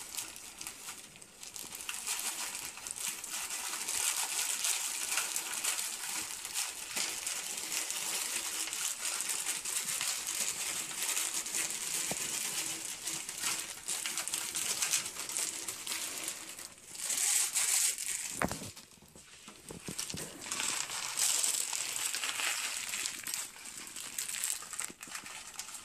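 Small pebbles rattling and scraping against each other and a clear container as they are packed around a plant's roots: a dense crackling rattle with a few brief pauses.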